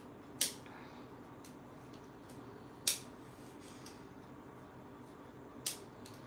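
Scissors snipping through plastic weaving strips: three sharp cuts, a couple of seconds apart.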